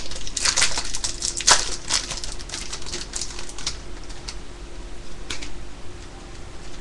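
A trading-card packet being torn open and crinkled by hand: a quick run of sharp crackles and rustles for the first few seconds, then only a few scattered rustles.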